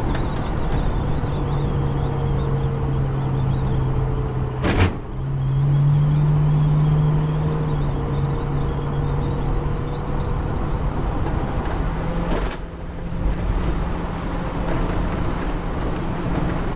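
Car engine running at road speed, heard from inside the cabin, with tyre and road noise. A sharp click comes about five seconds in and the engine note changes after it. There is a brief dip and another change in the note a little past halfway.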